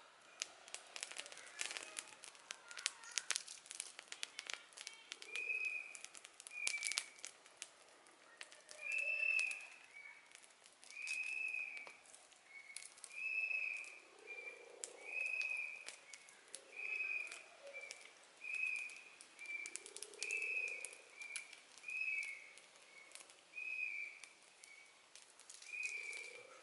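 Leaves and lamtoro pods crinkling and snapping as they are handled, thick for the first several seconds and then sparser. From about a third of the way in, a bird calls over and over, about once a second, alternating louder and softer notes.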